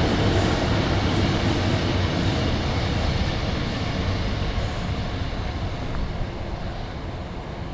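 Class 150 Sprinter diesel multiple unit running past and pulling away along the platform, its underfloor diesel engine hum and wheel noise fading as it recedes.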